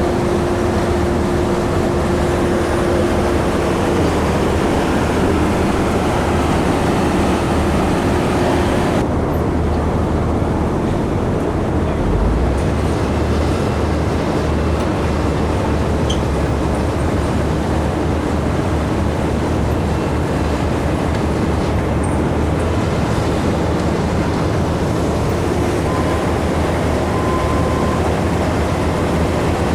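Steady drone of heavy diesel engines from the concrete pump truck and ready-mix trucks running at a slab pour. The higher hiss drops away suddenly about nine seconds in, while the low engine rumble carries on.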